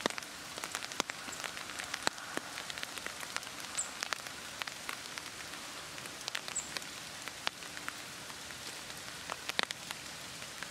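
Light rain falling, with many single drops ticking sharply close by over a steady hiss.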